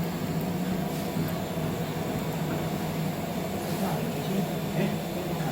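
Steady mechanical hum of laboratory equipment running, a constant low drone under an even airy noise.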